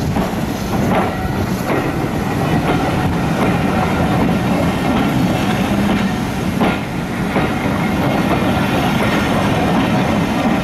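Railway passenger coaches rolling past at close range: a steady rumble of steel wheels on the rails, with occasional clacks as the bogies cross rail joints.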